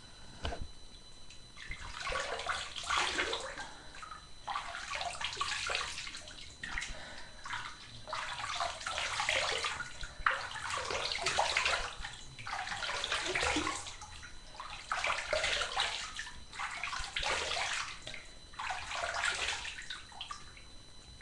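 Water splashing at a bathroom sink in about ten bursts of a second or so each, the sound of hands splashing water onto a face while washing it.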